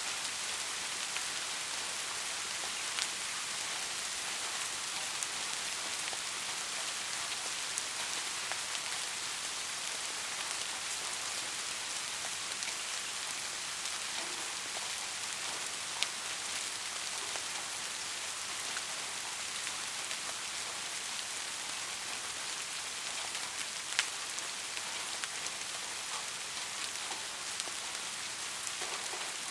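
Steady heavy rain falling, an even hiss with a few sharp individual drop ticks, the most distinct about 16 and 24 seconds in.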